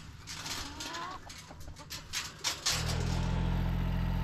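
Chickens clucking amid scattered clicks and knocks, then about two-thirds of the way in a tractor engine comes in abruptly, running at a steady idle.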